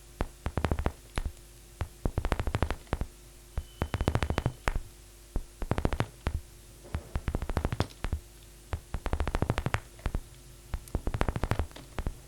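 Vital software synthesizer patch imitating paper crumpling: arpeggiated sharp clicks in bursts, a burst every second or two, some with a low thump underneath. A faint steady hum sits beneath the clicks.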